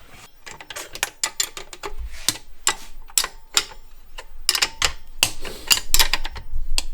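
Hand tools clicking and clinking on metal exhaust fittings while the exhaust springs are tightened: many quick, irregular sharp clicks, several a second.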